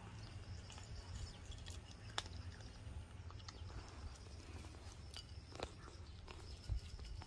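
A cat crunching dry kibble from a bowl: a few scattered sharp crunches over a low steady rumble.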